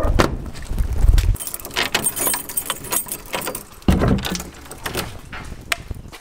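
Keys jangling and clicking while a door with an iron lever handle is unlocked and worked, with a low thump about four seconds in.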